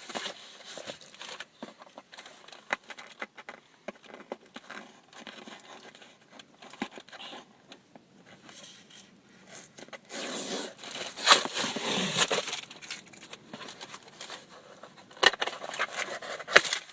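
A package being opened by hand: packaging rustling, crinkling and tearing, with scattered small clicks and scrapes. It gets louder for a couple of seconds about ten seconds in, and again near the end.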